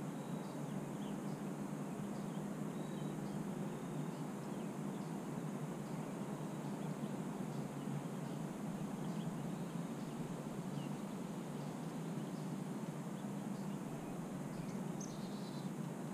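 Outdoor backyard ambience: a steady low background hum with faint, scattered short high chirps, and a slightly clearer brief chirp near the end.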